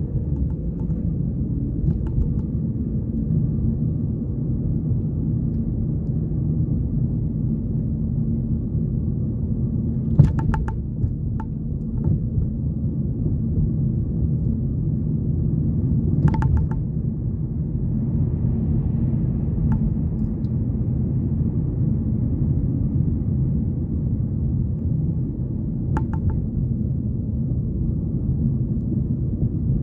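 Steady low road rumble of a car heard from inside its cabin while driving, with three brief sharp knocks spread through it.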